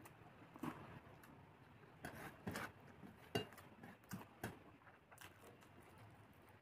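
Faint eating sounds: chewing with short wet mouth smacks and clicks, a few of them a second.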